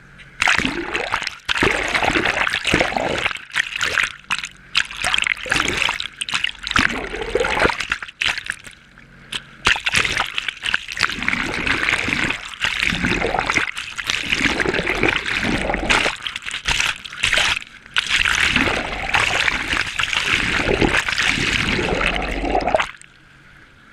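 Sea water rushing and splashing over a GoPro camera held in the water from a moving jet ski. It comes in loud surges that drop out briefly a few times and stops abruptly near the end.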